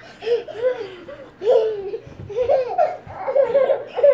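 Young children laughing and giggling in a string of short, high-pitched bursts.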